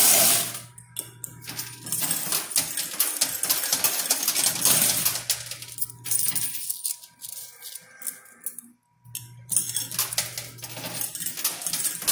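Quarters clinking and sliding in a coin pusher machine, many quick metallic clicks over a low steady hum from the machine. The hum and clinking drop away for a couple of seconds after the middle, go almost silent briefly about nine seconds in, then resume.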